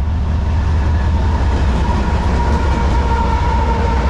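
CSX freight train's lead GE diesel locomotives running as they approach and pass close by, a heavy low engine rumble with a thin steady whine above it from about two seconds in.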